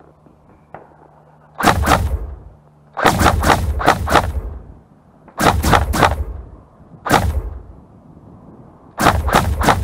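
Specna Arms G36 blowback airsoft electric rifle firing in five short strings of several rapid shots, with a single shot about seven seconds in.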